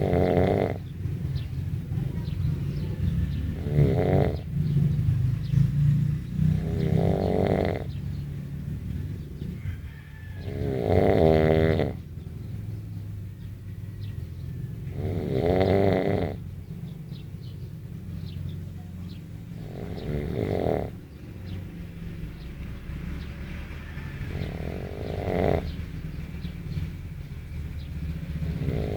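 Heavy snoring by a sleeper: about seven loud snores, each lasting about a second and coming every four to five seconds, over a steady low rumble.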